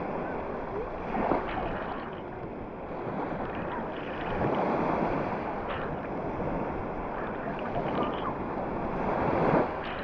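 Small sea waves breaking and washing up the sand right at the water's edge: a continuous foamy wash that swells loudest about halfway through and again near the end.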